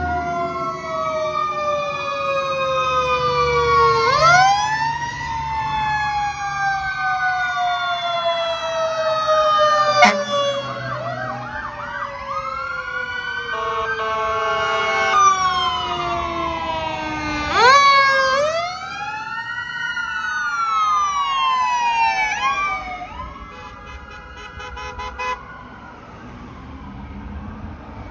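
Several fire truck sirens wailing at once, their pitches rising and falling out of step with one another, over the low rumble of the trucks' engines as the convoy passes. A single sharp crack about ten seconds in. The sirens fade over the last few seconds.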